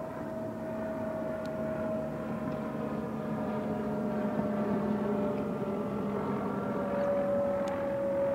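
Distant engine drone, steady with a slowly falling pitch, growing a little louder through the middle.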